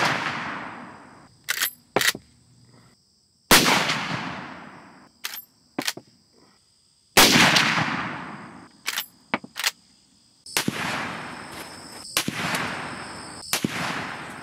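Three shots from a Marlin 336 lever-action rifle in .30-30 Winchester, about three and a half seconds apart, each with a long echo dying away. Between shots there are a few short metallic clacks as the lever is worked to chamber the next round.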